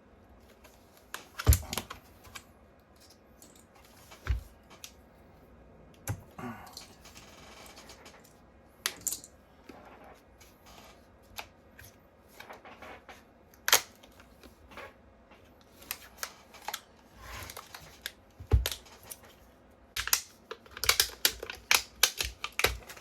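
Scattered clicks, taps and knocks from handling the opened e-bike battery pack and its parts by hand, the loudest knock about a second and a half in, with a quick run of clicks near the end.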